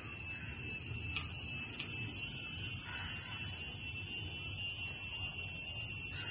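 Insects droning steadily, a continuous high-pitched shrill with a fainter lower tone beneath it. A spoon clicks faintly against a cup twice, a little over a second in.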